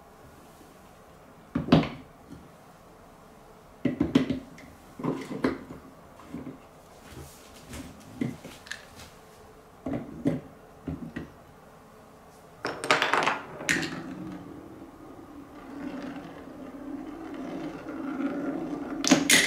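Wooden Quadrilla marble-run blocks and rails being set in place, a string of separate knocks and clacks. In the last third a marble rolls around a wooden spiral track with a steady rolling rumble that grows louder, ending in a sharp clack.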